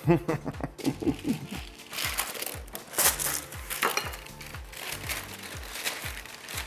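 Parchment paper crinkling and rustling as it is handled over a metal baking sheet, in a few bursts, over background music with a steady beat.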